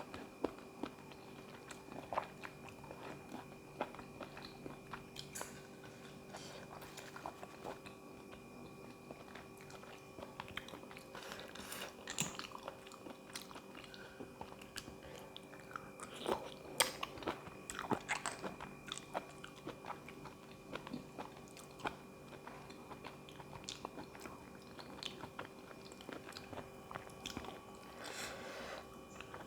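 A person chewing and crunching food close to the microphone, most likely spicy seafood salad with raw vegetables, in scattered irregular crunches and clicks. The loudest bites come about halfway through. A faint steady hum runs underneath.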